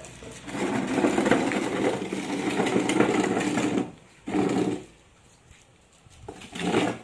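Wooden chair legs scraping across a concrete floor as a child pushes the chair: one long scrape of about three seconds, then two short scrapes.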